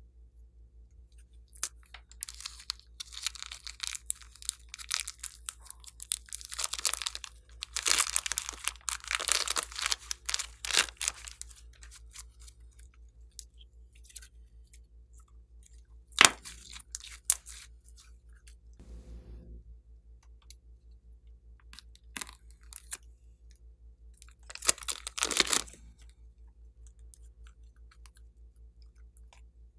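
Slime squeezed from a piping bag, stretched and folded by hand, making bursts of sticky crackling and clicking. The loudest bursts come about eight to eleven seconds in, with a single sharp snap about sixteen seconds in and another burst near the end, over a faint steady low hum.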